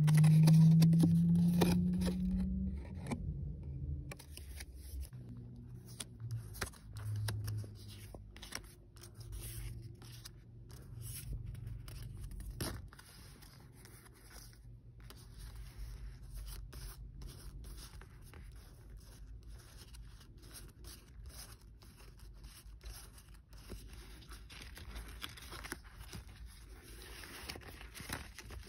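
Pokémon trading cards being handled by hand, slid and shuffled against each other in a run of short rustles, clicks and scrapes. A loud low hum rising slightly in pitch fills the first few seconds.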